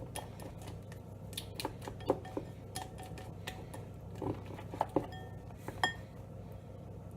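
A utensil stirring sticky glue slime in a bowl, tapping and clinking against the bowl at irregular intervals, with a couple of strikes near the end ringing briefly. A low steady hum lies underneath.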